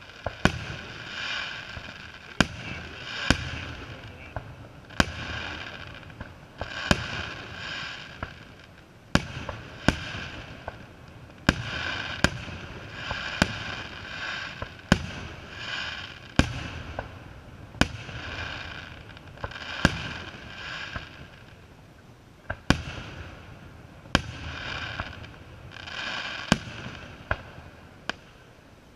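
Aerial firework shells bursting: a sharp bang every second or two, with a hiss between them that swells after each burst and eases off for a few seconds a little past two-thirds of the way through.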